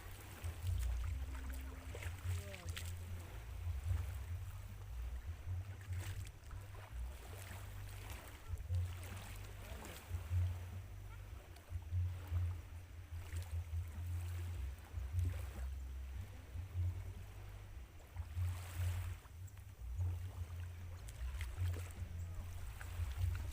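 Wind buffeting the microphone outdoors: an uneven, gusting low rumble with no clear tone.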